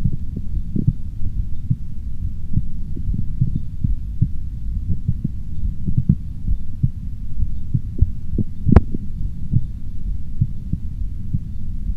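Human heartbeat heard through a stethoscope: repeated low, muffled thumps of the heart sounds over a low hum. One sharp click about three-quarters of the way through.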